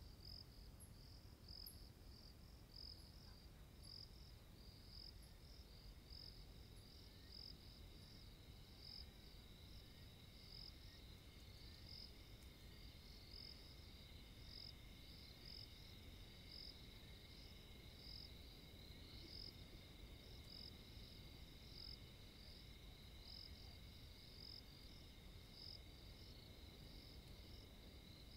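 Faint insect chirping, cricket-like: short high chirps repeating regularly, a little more than one a second, over a steady high-pitched drone.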